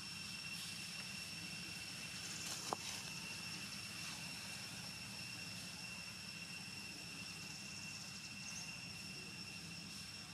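Insects droning steadily, a continuous high-pitched whine over a faint low background rumble, with one short sharp click about two and a half seconds in.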